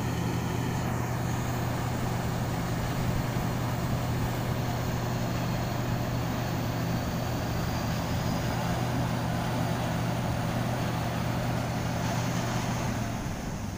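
Tracked rice combine harvester's diesel engine running steadily as the machine drives on its crawler tracks: a constant low hum with mechanical noise over it, which stops near the end.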